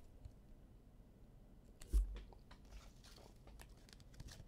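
A single dull thump on the table about two seconds in, followed by faint crinkling and clicking as trading-card packs and cards are handled.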